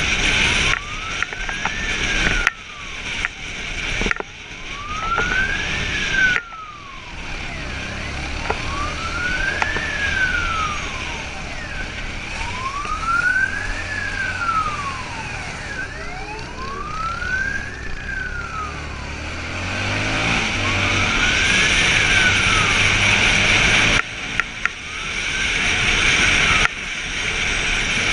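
Police motorcycle siren wailing, its pitch rising and falling about once every four seconds, over the bike's engine and wind noise. The engine picks up speed about two-thirds of the way through.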